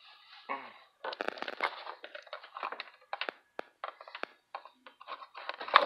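Cotton apron fabric rustling and rubbing against the microphone while the apron is pulled on: irregular crinkly bursts and clicks, with a sharp loud knock near the end.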